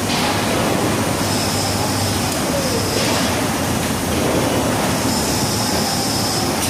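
Steady loud construction-site machinery noise, a constant rumble and hiss with a faint high whine that comes and goes.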